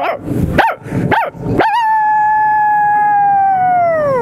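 A woman imitating a dog with her voice: three short yelps, then one long howl held at a steady pitch that slides down at the end.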